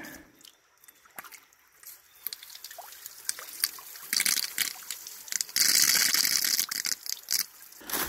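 Water spraying with a hiss out of a loosened PVC pipe union on a hydraulic ram pump's half-inch line, letting out air trapped in the pipe. The spray starts about four seconds in, grows stronger, and cuts off suddenly near the end. Before it there is only a faint trickle of creek water and a few small clicks.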